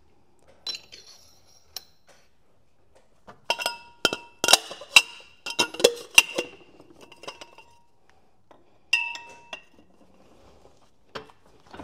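Steel parts clinking and ringing as a heated shrink-fit collar and a steel pressing tube are set down over a machine spindle in a press. A quick run of sharp metal-on-metal clinks with a bell-like ring comes from about three and a half to six and a half seconds in, then one more ringing clink about nine seconds in.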